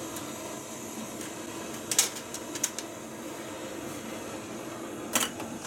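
Canister gas camping stove burner hissing steadily, with a few sharp metallic clicks and knocks from handling the stove and gas canister, a cluster about two seconds in and one more near the end.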